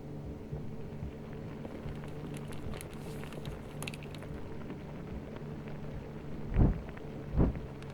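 A low steady hum with faint scattered rustles and ticks, then two dull low thumps about a second apart near the end.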